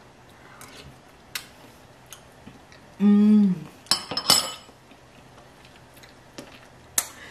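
A woman's short appreciative hum ('mmm') of pleasure after tasting food, about three seconds in. It is followed by two sharp clinks of a metal fork being set down. Faint small ticks of cutlery otherwise.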